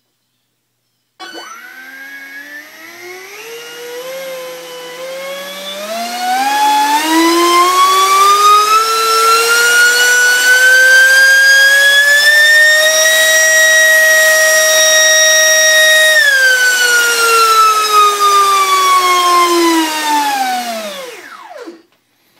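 Schubeler DS-30 70 mm three-bladed carbon-fibre ducted fan, driven by a Mega 1615 motor and installed in a foam F-15 model, spooling up and down. Its whine starts about a second in and climbs steadily in pitch for about ten seconds, holds at full throttle (about 460 watts) for a few seconds, then falls away and stops near the end.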